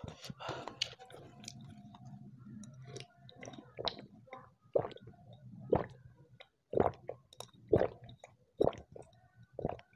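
A man drinking soup broth straight from a bowl: a run of loud swallowing gulps, about one a second, in the second half.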